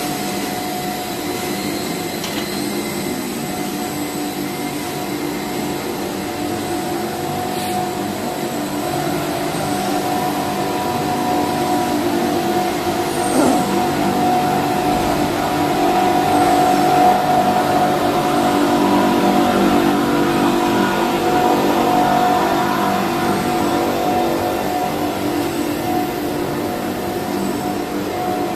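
Machinery of a steel-wire-reinforced PE pipe production line running: a steady mechanical hum with several held tones, growing louder in the middle stretch and easing off toward the end.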